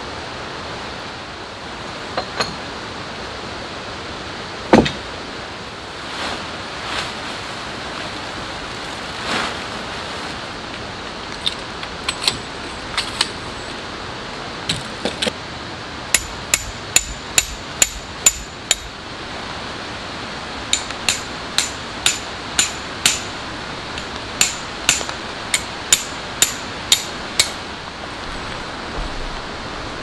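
A tent peg being hammered into stony ground: a run of sharp clinking strikes about two a second past the middle, a short pause, then a longer run, over the steady hiss of rain. A few single knocks and rustles come earlier.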